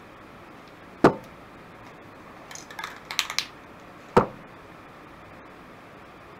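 Two sharp knocks of aerosol spray cans set down on a wooden table, one about a second in and one just past four seconds. Between them comes a quick run of metallic rattling clicks, the mixing ball of a spray can being shaken.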